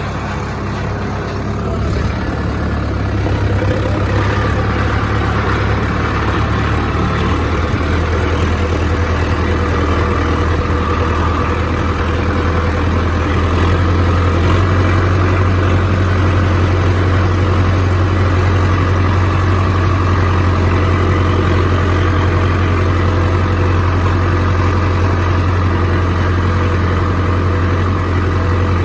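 Tractor engine running steadily under load, a heavy low hum that gets louder a few seconds in and again about halfway through.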